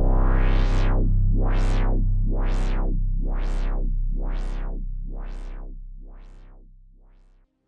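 Electronic music: a sustained synthesizer chord with a filter sweeping open and shut about once a second, fading out gradually and cutting off just before the end.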